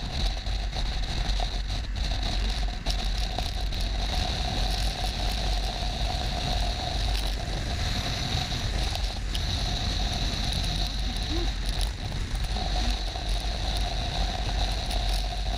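Motorcycle riding at road speed, heard from a camera on the bike: a steady rush of wind buffeting with the engine and road noise running underneath.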